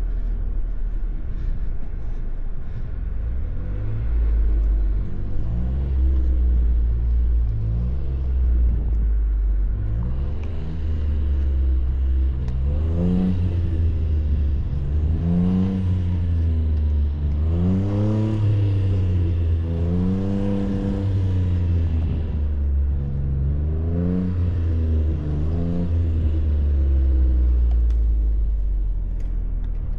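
Jeep engine running under load with a steady low rumble, revved up and down several times through the middle stretch, its pitch rising and falling with each rev.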